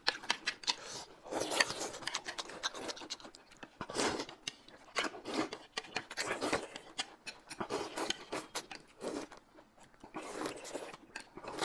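Close-up eating sounds: two people slurping noodle sheets and sauce and chewing, with quick clicks of chopsticks and mouth noises between the slurps. Near the end, one drinks the sauce from the lifted plate.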